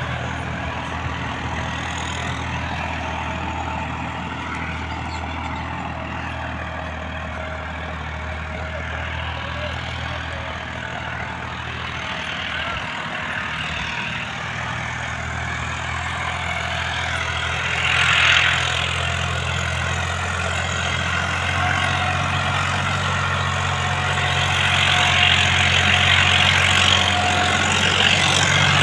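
Farmtrac tractor's diesel engine running steadily under load as it drags a disc harrow, with a brief louder noise about two-thirds of the way through and the engine growing louder near the end.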